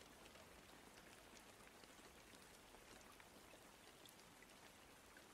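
Faint rain-sound background: an even hiss of rain with scattered small drop ticks.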